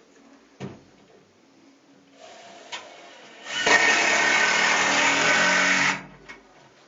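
A power drill runs, softly for a second or so and then at full speed for about two and a half seconds, then stops abruptly. A single knock comes just before it.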